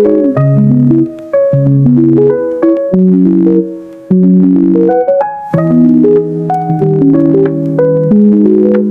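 Background music: a keyboard or synthesizer tune of short notes over held low chords.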